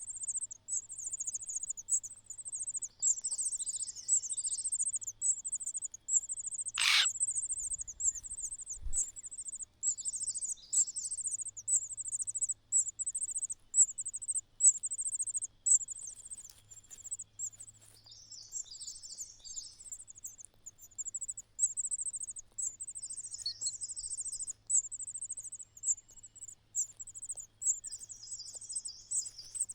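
A continuous high, rapidly pulsed insect-like trill, broken into short repeated phrases, with clusters of lower bird chirps every few seconds and one sharp click about seven seconds in.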